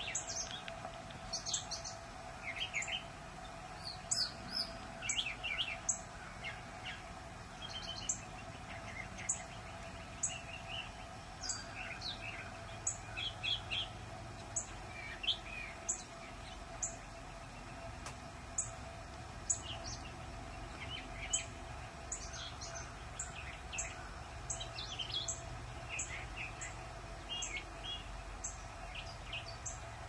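Several wild birds singing and calling in the trees, a mix of varied chirps and short phrases. A short, thin high note repeats about once a second through most of it, over a faint steady hum.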